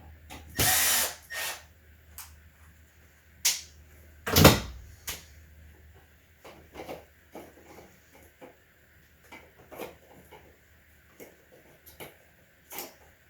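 Scattered clicks, knocks and plastic clatter of a smoke alarm's mounting screws and plate being worked loose by hand and with a screwdriver, the loudest a single thump about four and a half seconds in.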